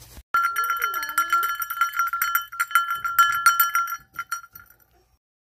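Old copper-alloy crotal bell shaken by hand, its loose pellet still inside and striking the shell in quick jingling strikes over one clear ringing note. The shaking stops about four seconds in and the ring fades out.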